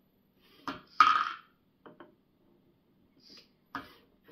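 LEGO robot arm's motors and plastic parts moving in steps: a few sharp clicks and short bursts of gear noise. The loudest burst comes about a second in.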